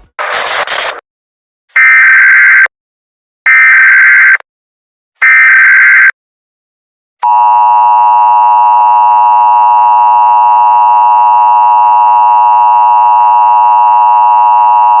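Emergency Alert System broadcast signal: three loud SAME header bursts of screeching digital data tones, about a second each, then the steady two-tone EAS attention signal starting about seven seconds in and held unbroken. A short burst of noise comes first.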